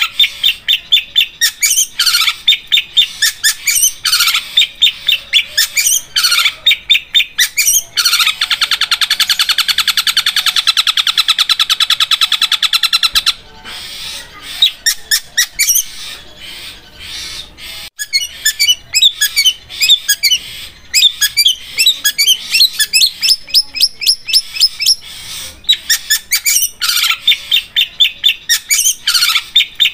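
Long-tailed shrike (cendet) singing in fast strings of sharp repeated notes. About eight seconds in, it breaks into a dense, very fast trill lasting about five seconds, like a sharp sewing machine. After that come varied chattering notes, and the rapid repeated notes return near the end.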